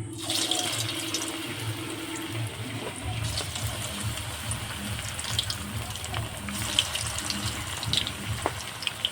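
Potato-coated egg pakoras frying in hot vegetable oil in a kadai: the sizzle starts suddenly as the first pieces go in, then holds as a steady hiss with scattered pops and crackles.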